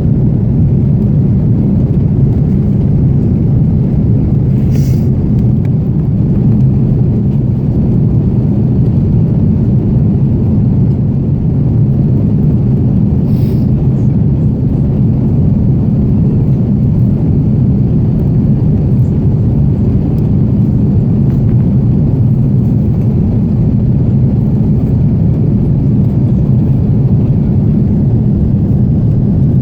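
Airbus A330 airliner cabin noise: a loud, steady low rumble that does not change.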